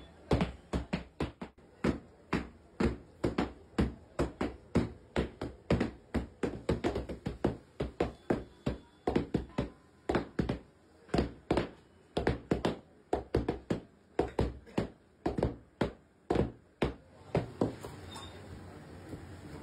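Heavy mallets pounding a slab of sesame candy dough on a stone floor slab: a steady run of dull thuds, about three a second, two mallets striking in turn. The pounding thins out near the end.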